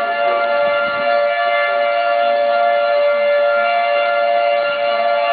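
Two-tone emergency alert signal: two steady tones sounding together, loud and without a break, of the kind that heralds a severe-weather warning.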